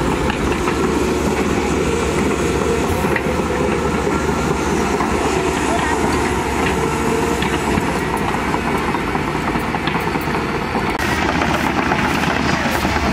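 Diesel engine of a Cat 320 hydraulic excavator running steadily at close range, a dense low rumble with a steady drone underneath. The sound shifts about eleven seconds in.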